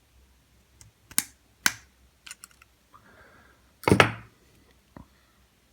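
Lockpicking tools and the lock being handled on a work surface: a few light clicks and taps, with one louder knock about four seconds in.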